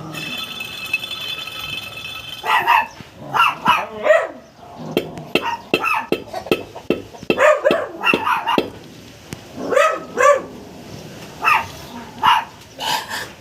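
A dog barking repeatedly in short, irregular volleys, starting about two and a half seconds in. Before the barking, a steady high-pitched whine is heard for a couple of seconds.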